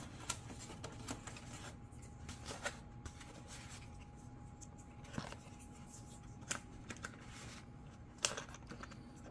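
Plastic parts of an RC plane being handled and fitted together: a few scattered sharp clicks and light rustling of handling.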